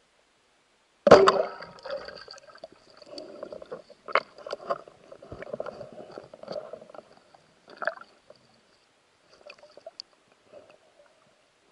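Speargun shot underwater: one sharp, loud crack about a second in, then scattered clicks and rattling of the gun, spear and shooting line.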